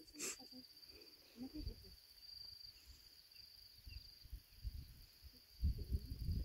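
A cricket trilling steadily at a high pitch, with a brief click just after the start and a few low thumps near the end.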